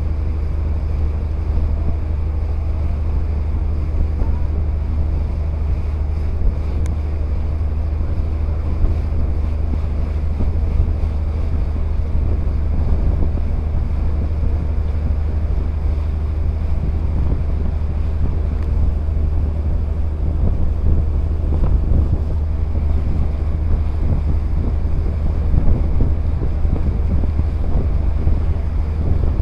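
Boat engine running steadily as a low, even hum, with wind buffeting the microphone and water rushing past the hull.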